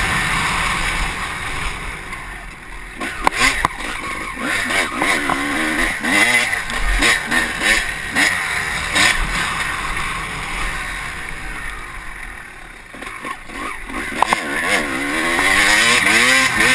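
Honda CR250 two-stroke motocross bike ridden hard on a dirt track, its engine revving up and down through the gears, with wind noise over the microphone. The revs drop off twice, about three seconds in and again around thirteen seconds, then climb again, with a few sharp knocks from the bike over the ground.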